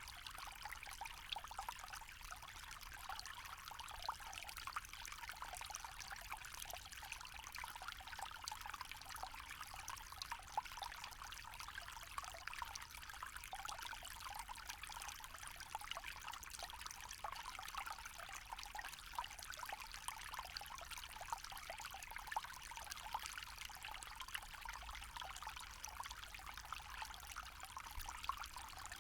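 Small forest stream trickling and splashing steadily over stones, a light, high bubbling with no deep rush.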